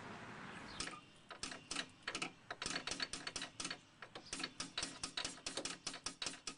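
Quick light hammer blows, metal on metal, knocking an old sway bar link loose: about four strikes a second, starting about a second in, with a short pause midway.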